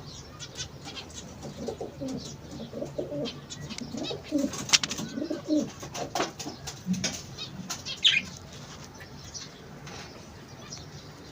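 Pigeons cooing in low, rising-and-falling phrases, with wing flaps, sharp clicks and a short higher chirp near the end.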